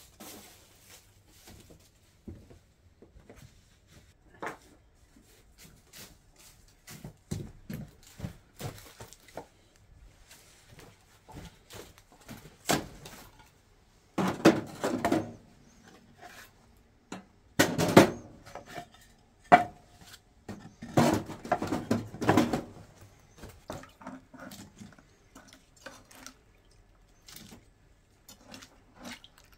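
Split firewood knocking and clattering against the metal firebox of a wood stove as it is loaded by hand, with a few metal clanks. The knocks come in three bunches around the middle, with lighter scattered handling sounds before and after.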